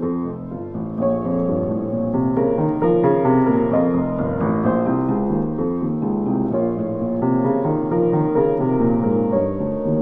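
Solo piano music: a steady flow of notes played on a piano, with no other sound over it.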